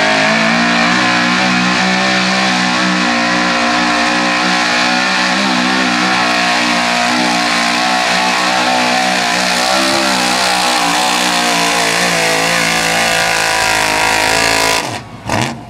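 Modified square-body Chevy 4x4 pickup's engine running flat out at high revs under heavy load as it drags a weight-transfer pulling sled. The engine note holds steady and cuts off suddenly about fifteen seconds in, at the end of the pull.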